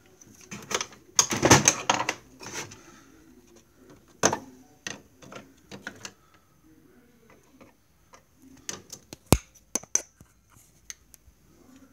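Irregular mechanical clicks and clatter from the open mechanism of an HP 1315 inkjet printer. There is a denser rattle about a second in and a scatter of sharp clicks in the second half.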